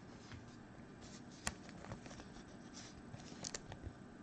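Trading cards being handled: faint rustling with a sharp click about one and a half seconds in and a few light clicks around three and a half seconds, as stiff chrome baseball cards are slid and flipped.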